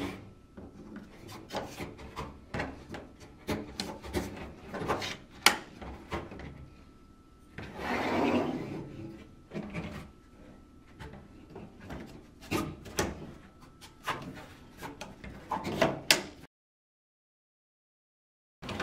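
Sections of a four-part aluminum kayak paddle being handled on a table: blades and shafts sliding and rubbing together, with scattered sharp clicks as the snap-buttons lock into place. The sound cuts to dead silence near the end.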